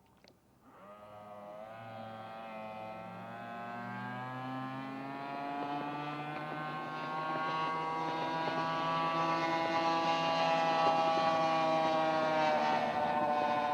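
Drag boat's Allison V12 aircraft engine running after a moment of near silence, growing steadily louder with its pitch slowly rising, then levelling off near the end.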